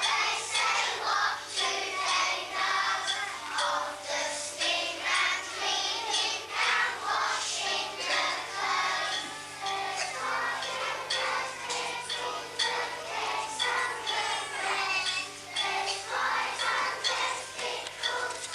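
Children singing together with music, with a steady low hum underneath.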